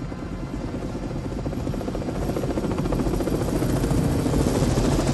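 Helicopter rotor chop with a fast, even beat, growing louder as it comes overhead.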